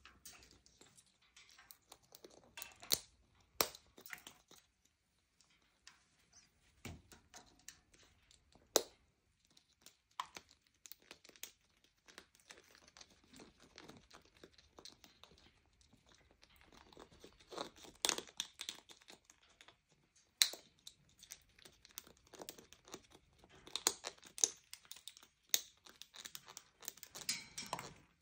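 Scarlet macaws crunching and cracking snack food with their beaks: irregular sharp cracks and bursts of crunching, busier near the end.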